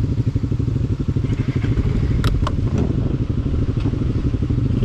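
A motorcycle engine idling steadily, with two sharp clicks a little over two seconds in.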